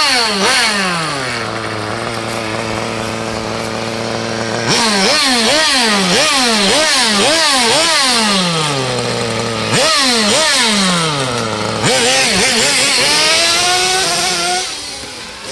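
Kyosho Nitro Tracker RC monster truck's small two-stroke nitro engine being blipped, in quick rising-and-falling revs, then settling to a steady idle about two seconds in. From about five seconds in it is revved again in a quick string of blips, and near the end it runs on under way, fading as the truck drives off.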